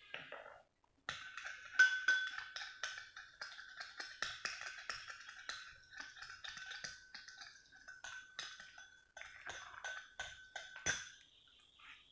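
A metal spoon stirring a creamy lotion mixture in a small glass bowl, clinking against the glass over and over in quick irregular strokes, so the bowl keeps ringing with a steady tone. A sharper knock comes near the end of the stirring.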